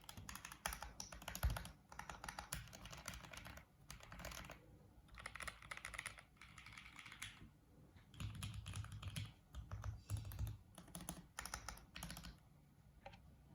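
Typing on a 40% mechanical keyboard with Gateron Pro Red linear switches and MT3-profile keycaps: runs of quick keystrokes broken by short pauses, with one louder stroke about a second and a half in.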